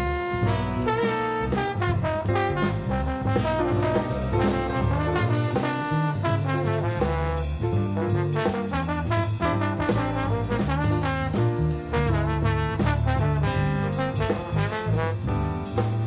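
Background jazz music with brass horns over a steady beat.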